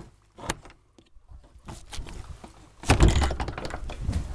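Metal barrel bolt on a wooden chicken-coop door clicking as it is slid open, then a few light knocks and a loud wooden thump about three seconds in as the door is handled and opened.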